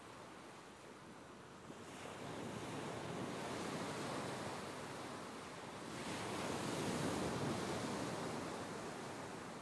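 Ocean surf: a steady wash of waves breaking on a beach, swelling twice as waves roll in.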